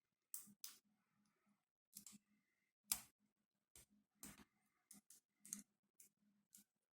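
Lock pick and tension wrench working in an ASSA Ruko 500 padlock core: about a dozen small, sharp, irregular metallic clicks, the loudest about three seconds in.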